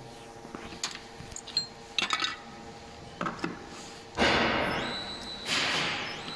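Metal parts of a tube loading machine clinking and tapping as they are handled, then two loud hissing bursts about a second and a half apart, each fading over about a second.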